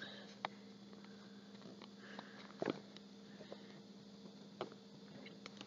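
Faint rustle and crackle of a square of paper being folded and creased by hand, with a few small sharp clicks, the loudest about two and a half seconds in.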